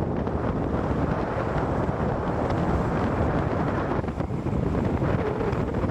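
Wind buffeting the microphone over the steady rumble of a vehicle moving along a road.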